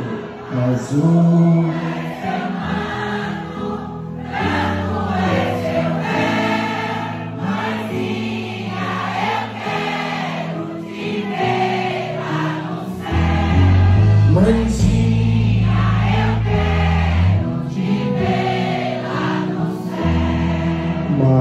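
Live Christian song: many voices singing together over band accompaniment, with a deep bass line coming in a little past halfway through.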